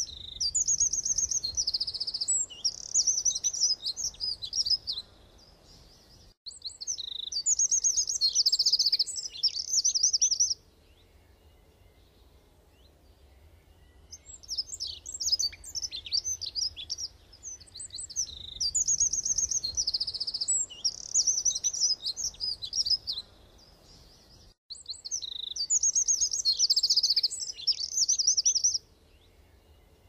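Songbird song: bursts of rapid, high-pitched chirps and trills, each lasting a few seconds, with a longer pause near the middle.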